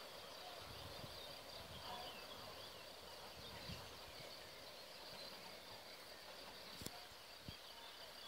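Faint outdoor ambience: a steady high, thin insect-like drone over a low hiss, with a few faint chirps and two small clicks near the end.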